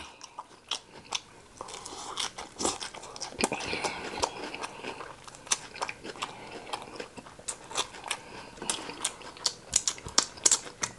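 Close-miked chewing of a lettuce wrap: a rapid run of crisp crunches and wet mouth clicks.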